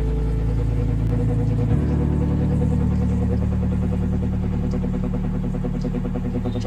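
A 24-inch atta chakki (stone flour mill) running on its belt drive, with a steady machine drone and a fast, regular pulse.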